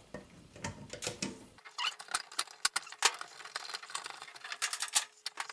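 Irregular metal clicking and rattling of fittings as the washing machine supply lines are loosened from the valves.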